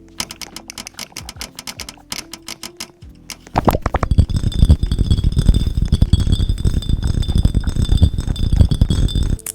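Rapid computer keyboard typing, dense key clacks over background music. About three and a half seconds in, the typing becomes much louder and deeper.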